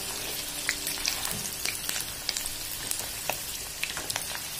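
Small whole potatoes deep-frying in hot oil in a kadhai: a steady sizzle dotted with sharp crackles and pops.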